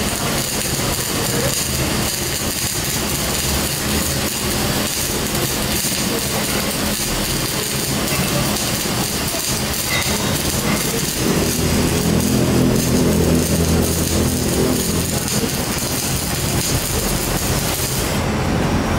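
Arc welding crackling and hissing steadily over the low, steady hum of machinery, which grows louder about halfway through.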